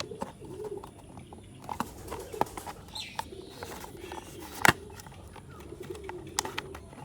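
Scattered clicks and knocks of plastic toy-car parts being handled and pressed together, with one sharp snap a little past the middle. A pigeon coos softly in the background.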